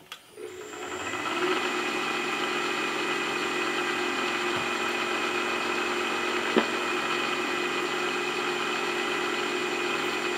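Milling machine spindle switched on, winding up over about a second and then running steadily with a whine, turning a boring head fitted with a homemade boring bar. A single sharp click about six and a half seconds in.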